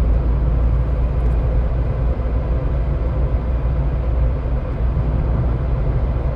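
Car driving along, heard from inside the cabin: a steady, low road and engine noise that runs unbroken.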